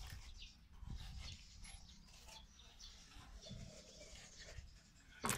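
Metal spoons scraping and scooping watermelon flesh out of the rind in short strokes, with one sharp click near the end.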